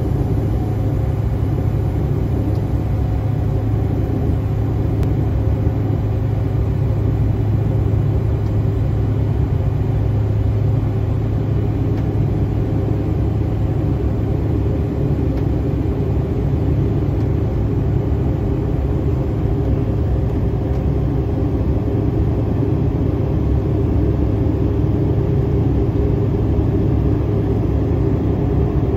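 Steady cabin noise inside an Embraer E190 jetliner in flight: a deep, unbroken rumble of engines and airflow with a faint even hum above it.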